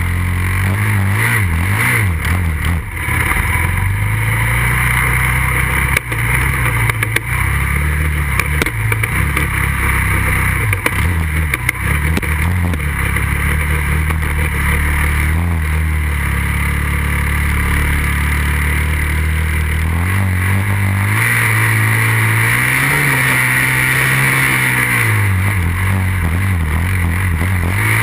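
2008 Kawasaki 450 dirt bike's single-cylinder four-stroke engine heard from a camera on the back of the bike, running hard through sand. Its pitch rises and falls with the throttle, with a few brief drops in the first half and a rev up and back down near the end.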